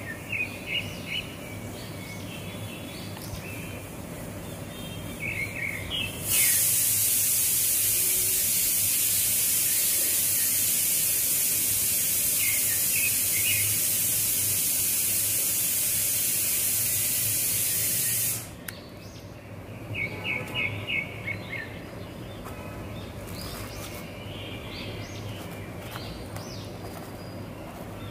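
Small birds chirping on and off. About six seconds in, a loud, steady hiss starts abruptly, runs for about twelve seconds, and cuts off sharply.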